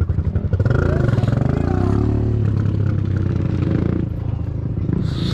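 Dirt bike engine running and revving, its pitch climbing about half a second in and then rising and falling with the throttle.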